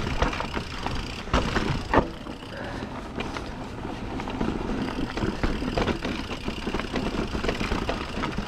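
Mountain e-bike rattling down a rough, rocky trail, with tyres crunching over rock and frequent sharp knocks and clatter from the frame, chain and suspension over a steady low rumble.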